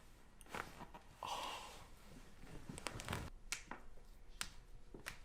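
Several sharp pops of joints cracking during a chiropractic adjustment, the strongest around three seconds in, with a short breathy exhale about a second in.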